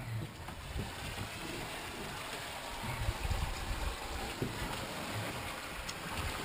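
Water rushing along the hull of a Paceship PY 26 sailboat under way: a steady wash of noise with uneven low rumbles.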